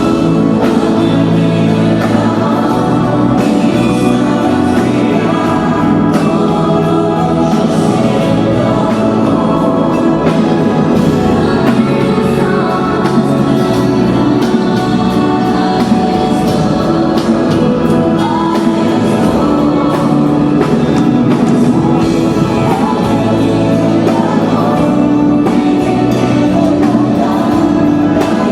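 Music with singing voices over instruments.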